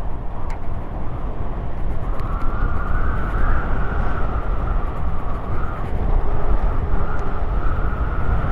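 Wind buffeting the microphone and tyres rolling on asphalt as a Trottibike scooter coasts fast downhill: a steady rumbling rush with a wavering whine above it.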